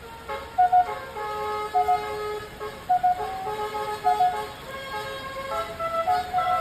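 Basuri telolet bus horn, a multi-trumpet horn, playing a repeating melody of stepped, held notes with a quick double blip about once a second. Near the end the tune moves on to longer held notes.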